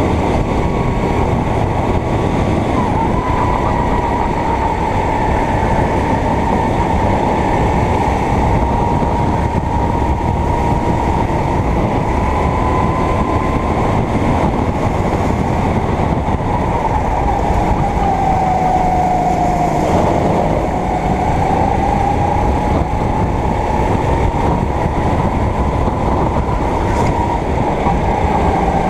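Kart engine running hard and steadily, its pitch drifting with the revs. The pitch drops for a couple of seconds about twenty seconds in, then climbs back. A constant heavy rumble of noise runs underneath.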